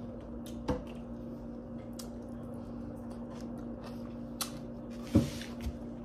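Close-miked chewing of crunchy breaded shrimp: soft mouth smacks and a few short clicks, the loudest about five seconds in, over a steady low hum.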